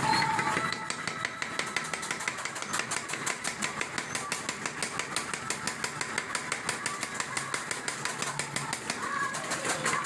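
Mechanical power hammer striking red-hot steel on its anvil in a fast, steady rhythm of about five blows a second, starting about a second in.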